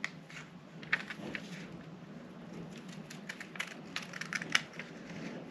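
Scissors cutting a paper sewing pattern: an irregular run of short snips and crackles of paper.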